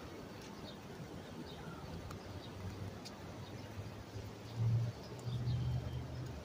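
Street ambience with scattered short bird chirps and a low hum, over which a low steady engine drone builds and is loudest about four and a half seconds in, then fades near the end.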